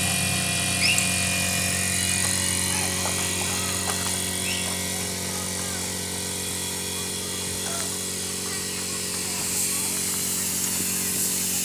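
Small portable air compressor running with a steady hum, feeding a paint spray gun. Near the end the hiss of the spray gun atomising paint rises over it.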